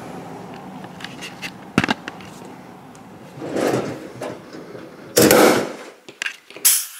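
Pneumatic rivet gun pulling a blind rivet in thin aluminium skin. There is a single sharp snap about two seconds in as the rivet sets, followed by several louder rushing, rubbing noises near the end.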